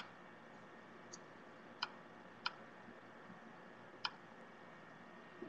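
Quiet room tone with about five short, sharp clicks at irregular intervals.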